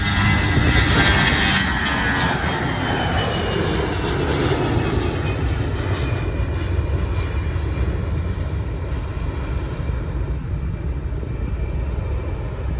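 Delta Airbus A320 jet airliner passing close on its takeoff climb: loud engine roar with a whine that falls in pitch over the first several seconds as it goes by, then a steady rumble.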